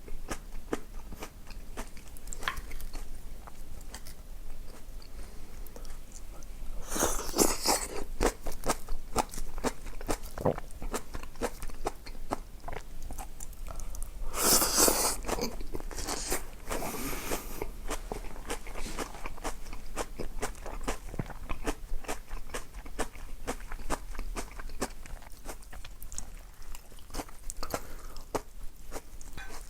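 Close-miked eating: a person biting and chewing crunchy food, with many small crunching clicks and two louder, longer noisy stretches about 7 and 15 seconds in.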